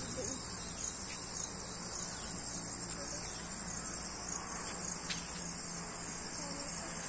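Steady, high-pitched insect chorus, a continuous cricket-like trill.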